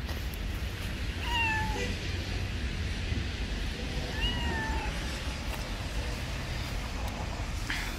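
Calico cat meowing twice: two short meows about three seconds apart.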